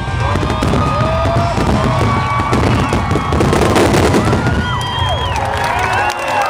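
Fireworks finale going off in a rapid barrage of booms and crackles, with a crowd screaming and whooping over it. The low booming stops about six seconds in.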